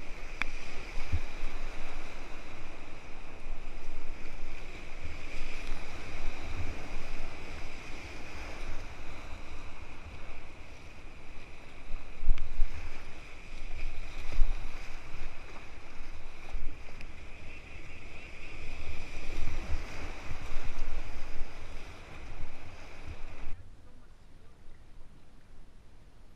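Whitewater rapids rushing around a kayak close to the microphone, a steady hiss of churning water with irregular low thumps of water and wind hitting the mic. A little before the end it drops off suddenly to much quieter, calm water.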